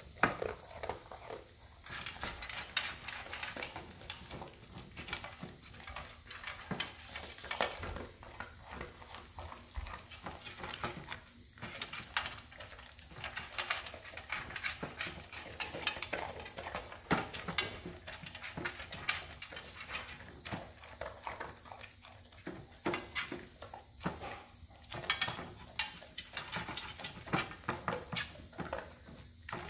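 Golden retriever eating dry kibble from the plastic tray of an automatic pet feeder: an irregular run of crunching, chewing and smacking.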